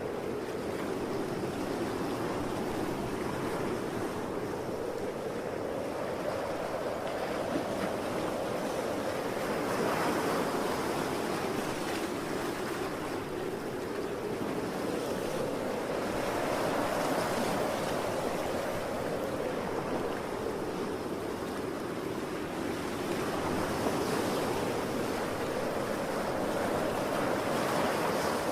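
Strong wind blowing with ocean waves surging and washing in, the sound swelling and easing about every six to seven seconds.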